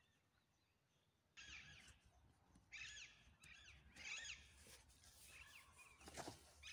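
Faint bird calls: short phrases of quick sweeping chirps, repeating about every second from about a second and a half in. A brief rustle comes near the end.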